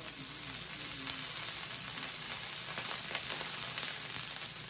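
Filled, folded birria tacos frying in shallow oil in a pan: a steady sizzle with scattered crackling pops.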